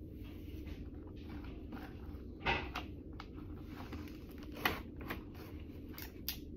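Stickers and paper being handled on a desk: soft rustling with a few short, light clicks and taps, the loudest about two and a half seconds in and again just before five seconds in.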